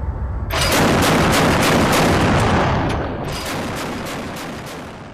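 Mk 38 deck gun's 25 mm M242 Bushmaster chain gun firing in bursts of about four shots a second, with a brief pause about three seconds in. The firing fades out near the end.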